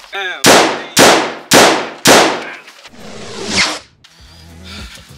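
Four gunshots in quick succession, about half a second apart, each with a long echoing tail. They are followed by a rising whoosh that cuts off sharply near the four-second mark.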